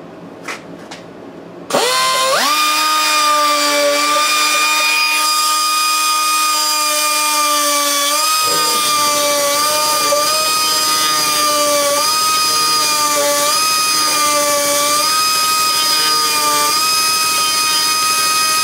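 High-speed die grinder spinning a saw drill bit: it starts about two seconds in, its whine rising quickly to a steady high pitch. The pitch sags briefly several times as the bit bears sideways on the hole it is elongating, and the grinder stops right at the end.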